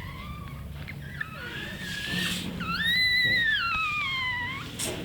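Pug puppy whining in high, drawn-out cries. The loudest comes near the middle; it rises and then slides down in pitch over about two seconds.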